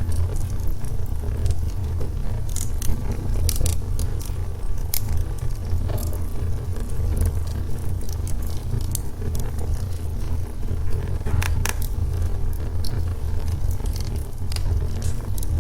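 Burning logs in a fireplace: irregular sharp crackles and pops over a steady low rumble of the flames.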